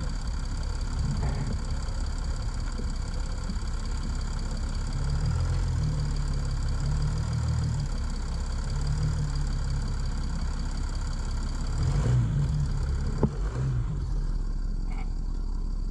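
Chrysler 300C's OM643 common-rail diesel engine idling steadily, ticking over smoothly without wobbles. A single sharp click about 13 seconds in.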